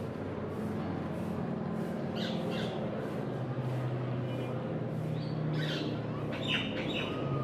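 Low, steady drone of a single-engine propeller military aircraft as it comes in to land, with birds squawking about two seconds in and again from about five seconds.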